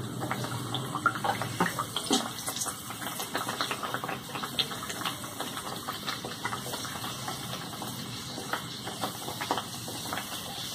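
Dal kachori deep-frying in hot oil in a kadai: a steady sizzle with many small crackles and pops.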